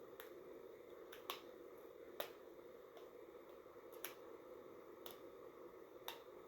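Near silence: a steady faint room hum with a few small sharp clicks, roughly one a second, from hands working hair bows and ties onto braids.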